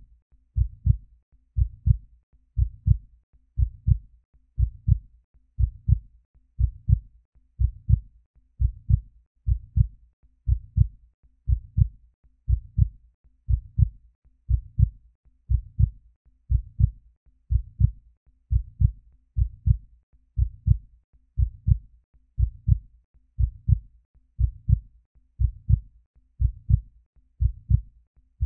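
Heartbeat: a steady lub-dub of two low thumps, repeating evenly about once a second.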